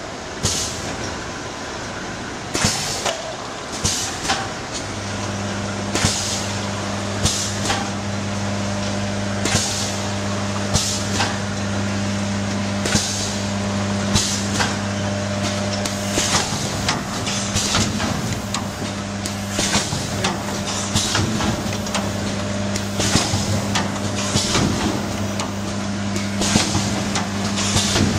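Cup filling and sealing machine running its cycle, with a stroke roughly once a second. A steady low hum joins about five seconds in.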